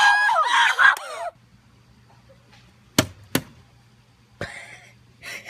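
A high-pitched scream for about the first second. Then two sharp knocks about a third of a second apart as a plastic water bottle lands on a wooden deck step.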